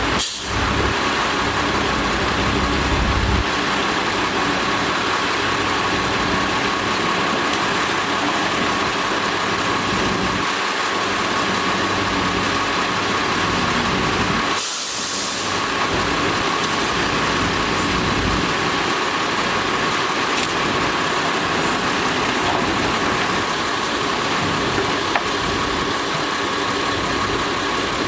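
Heavy diesel earthmoving machinery running steadily under load, with a steady whine over the engine noise and a brief drop about halfway through.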